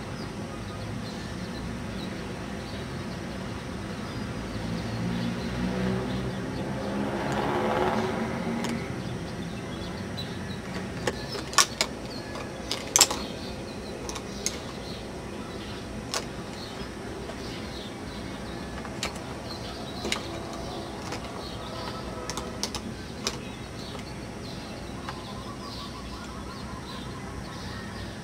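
Steady background noise in which a motor vehicle passes, its engine pitch rising as it speeds up, loudest about eight seconds in. Later come several sharp clicks, and faint high chirps.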